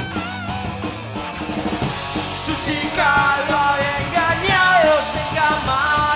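A rock band playing live, with electric bass and a wavering guitar line. A singer comes in about three seconds in, and the music gets louder from there.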